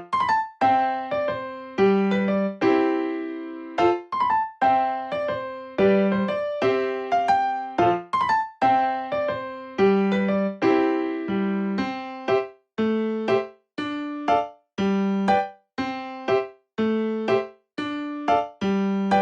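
Background music: a plucky electric piano melody of separate notes, each struck and fading, in a steady rhythm.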